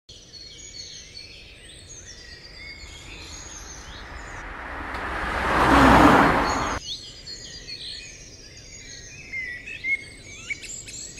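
Birds chirping and tweeting in outdoor ambience. In the middle, a rushing noise swells up over about two seconds and then cuts off abruptly, after which the birdsong resumes.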